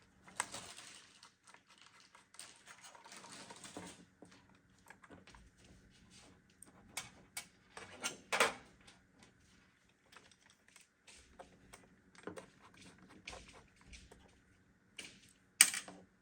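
Scattered small clicks, taps and rustles of hands handling computer parts, with two short rustling stretches in the first few seconds, a louder clatter about halfway through and a sharp click near the end.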